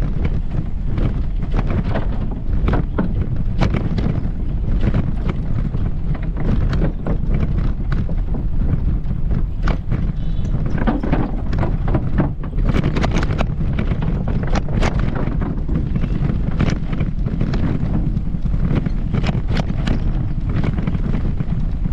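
Wind buffeting the microphone with a steady low rumble, over footsteps at a walking pace.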